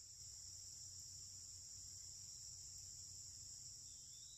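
Faint, steady, high-pitched chorus of insects such as crickets, with a short rising note near the end.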